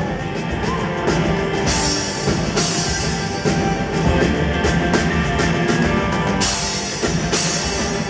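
Live band music: acoustic guitar and drum kit playing together, with cymbal crashes every second or so.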